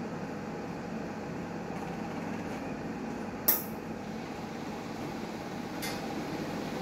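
Newmed Kronos S benchtop steam autoclave running, a steady mechanical hum with a faint tone in it. A sharp click comes about three and a half seconds in, and a fainter click near the end.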